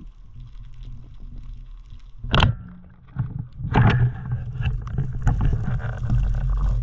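Underwater movement noise of a freediver with a speargun: a sudden knock about two seconds in, then a continuous rush of water and rubbing with uneven peaks as he pushes off the bottom and swims upward.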